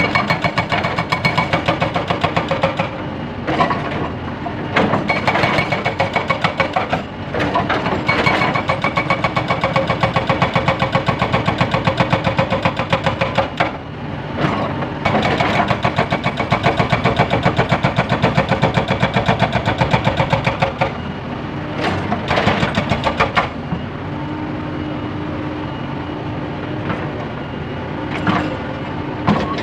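Hydraulic breaker on a Caterpillar 320B excavator hammering limestone in rapid repeated blows, with short pauses, over the excavator's diesel engine. For a few seconds near the end the hammering stops and the engine runs on alone, before a few more blows.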